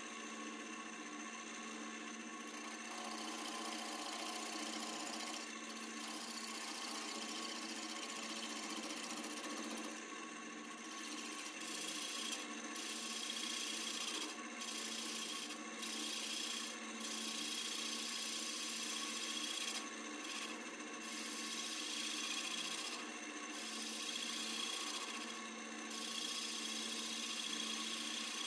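Wood lathe running while a turning tool cuts a spinning western red cedar blank: a steady motor hum under the scraping hiss of the cut, which breaks off briefly several times between passes.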